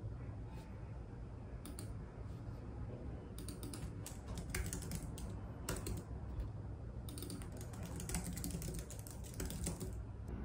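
Typing on a slim low-profile computer keyboard: quick key clicks in short bursts, the longest run near the end, over a steady low background hum.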